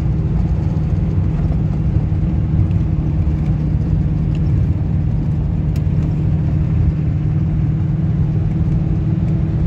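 Car's engine and tyre noise heard inside the cabin while cruising at around 80–90 km/h: a steady, unchanging low hum.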